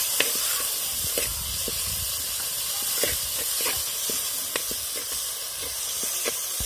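Onions, tomatoes and green chillies sizzling in hot groundnut oil in a clay pot. A spatula stirs them with scattered scrapes and taps.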